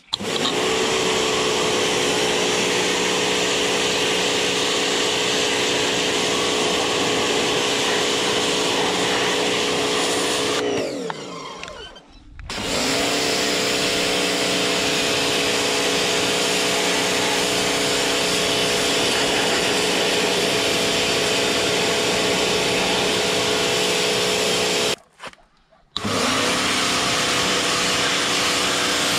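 Stanley SXP-V22 2.2 kW electric pressure washer running: a steady motor-and-pump hum under the hiss of the high-pressure jet blasting mud off a car's side. About ten seconds in, the motor winds down and starts up again. Near the end it cuts out for about a second and restarts.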